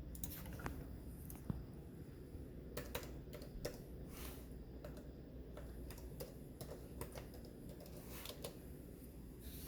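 Typing on a computer keyboard: irregular, scattered key taps, over a low steady hum.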